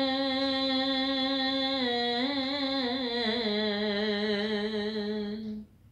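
A man singing an Urdu devotional qasida without accompaniment, holding one long drawn-out note. About two seconds in the note wavers in an ornament, then steps down and holds lower before breaking off just before the end.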